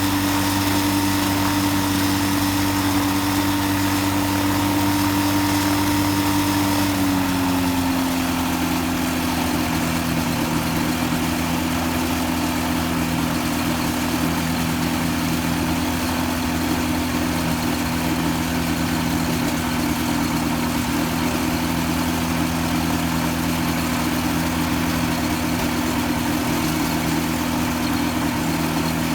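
Freshly rebuilt Rotax 503 two-cylinder two-stroke engine running at a steady speed, which dips slightly about seven seconds in and then holds at the lower, steady pitch.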